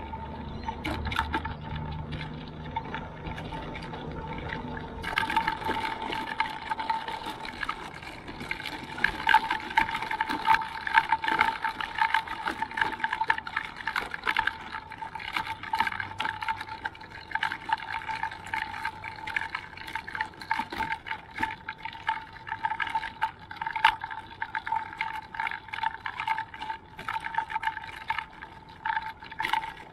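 GoGo ultralight mobility scooter riding over rough asphalt: a steady electric-motor whine under constant dense rattling and clicking as its solid, non-pneumatic tyres jolt over the surface. Louder from about five seconds in.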